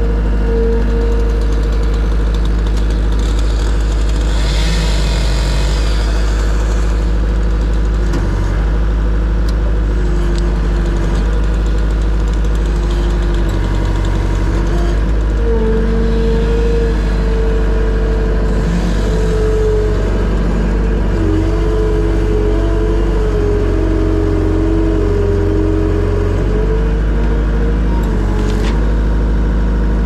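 Skid steer engine running steadily under load, heard from the operator's seat, with a whine whose pitch steps up and down as the loader's hydraulics work the arms and attachment.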